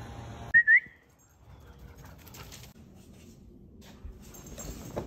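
A German Shorthaired Pointer puppy gives a brief high whine that rises in pitch, about half a second in. Afterwards there are faint soft rustles and scratches as it moves about on a cushioned dog bed.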